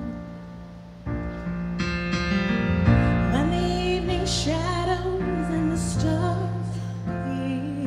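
Piano playing a slow accompaniment: quiet at first, then new chords about a second in. A woman's voice comes in about three seconds in, singing long held notes over the piano.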